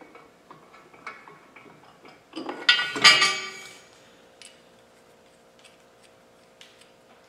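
Small metal clicks of steel bolts and hardware being handled, then about two and a half seconds in a loose bolt drops and gives one loud, ringing metallic clatter that fades over about a second. Only faint clicks follow.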